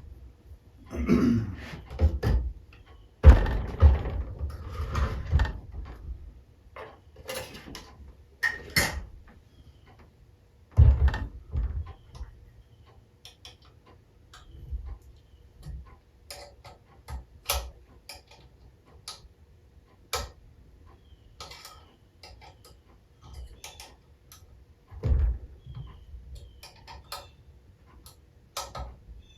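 Hand tools and small engine parts being handled during assembly: irregular clicks and taps, with a few heavier knocks about a second in, around three to six seconds in, near eleven seconds and near twenty-five seconds.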